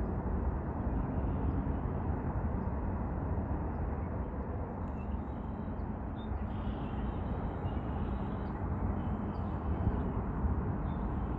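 Steady low outdoor rumble, with faint short high chirps now and then through the middle.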